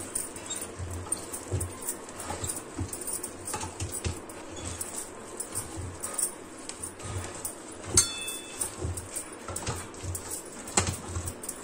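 Wooden stirring stick pushing and scraping through ragi flour and cooked rice in a rice-cooker pot, mixing the dough for ragi mudda: repeated dull thumps and scrapes at an uneven pace, with one sharper clink about eight seconds in.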